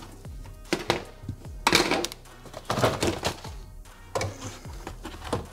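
A series of irregular knocks and scuffs from hands working on plastic interior trim in a car's cargo area, with faint background music underneath.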